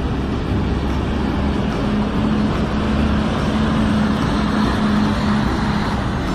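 A steady vehicle engine-like running noise with a constant low hum, going on without a break.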